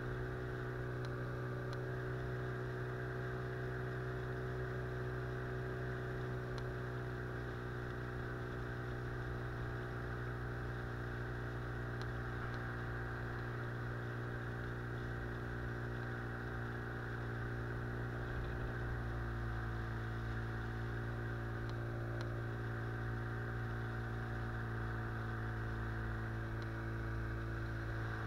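Boat outboard motor running at a steady cruising speed, heard from aboard the moving inflatable boat, with a slight shift in pitch about two-thirds of the way through.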